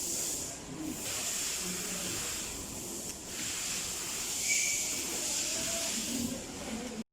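A steady hiss in two spells, with a short break about two and a half seconds in.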